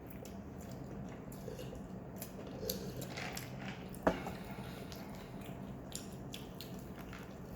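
Chewing and biting food, with small wet clicks and rustles, and one sharp tap about four seconds in.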